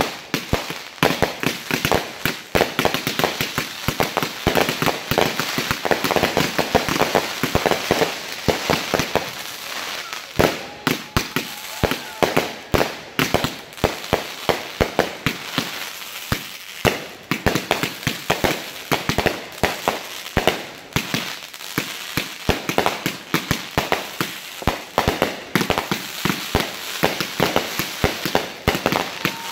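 A fireworks finale board firing: a dense, rapid string of shots launching and bursting overhead, several bangs a second with crackle between them.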